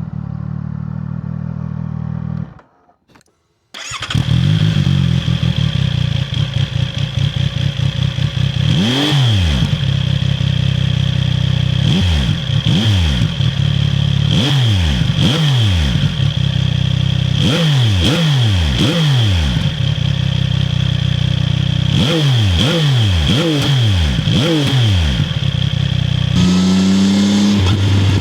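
CFMoto 675NK's 674 cc three-cylinder engine running at idle and blipped again and again, in clusters of two to four quick revs that rise and fall. The sound drops out briefly about three seconds in, and the engine settles to a steady note near the end.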